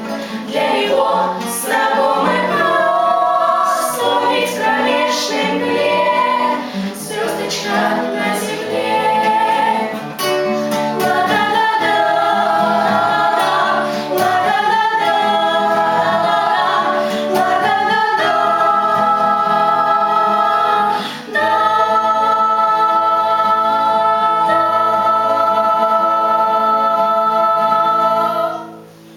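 Junior children's choir singing the closing phrases of a song, ending on one long held chord that stops just before the end.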